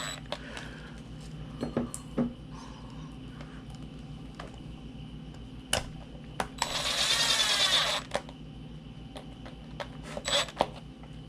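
Small clicks and knocks of wires and plastic connectors being handled and fitted by hand, with a rasping scrape lasting about a second midway. A faint steady electrical hum runs underneath.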